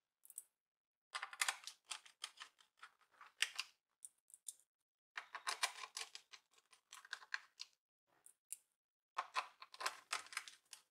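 Faint, quick flurries of small plastic clicks and taps as the laptop's plastic bottom case is pressed and handled, in three short bursts.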